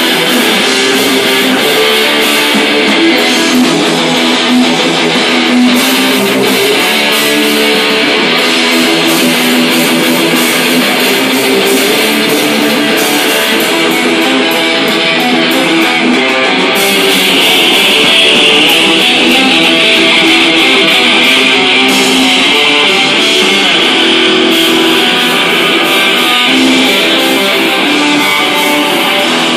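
Live rock band playing loud: electric guitar through a small amp, with a drum kit.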